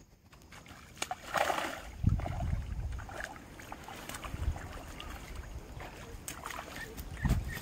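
A hooked black rohu thrashing and splashing at the water's surface as it is played in and lifted out, with a burst of splashing about a second and a half in and several dull low thumps.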